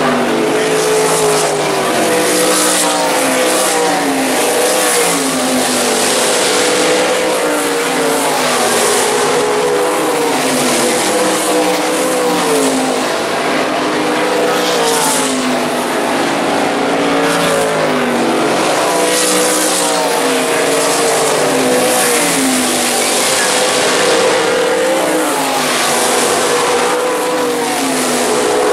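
A pack of winged dirt-track sprint cars racing, their V8 engines running hard all together. Their pitch rises and falls over and over as cars pass down the straight and lift for the turns.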